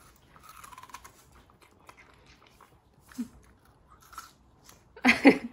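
Boston terrier biting and chewing a piece of watermelon held in a hand, with small wet crunches scattered throughout. A sharper, louder burst of noise comes about five seconds in.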